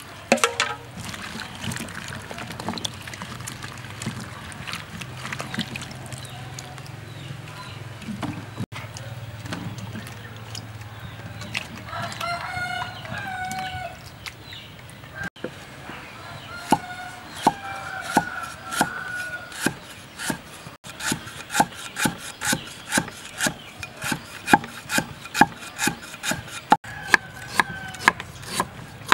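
A large knife chopping lemongrass and a yellow root on a wooden chopping block: sharp, even chops about two a second through the second half. Before the chopping, chickens call in the background, with a long wavering call near the middle.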